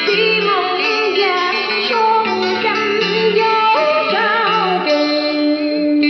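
A woman singing a Vietnamese song into a karaoke microphone over backing music, her melody wavering and ornamented. About five seconds in her voice stops and the backing music holds a long note.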